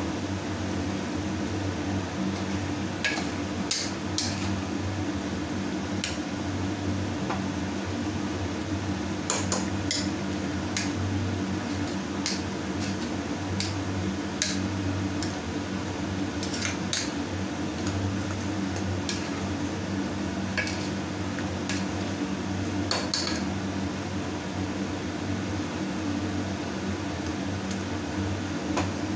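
A metal ladle stirring curry in a pressure cooker, with scattered clinks and scrapes of metal on metal, over a steady low hum.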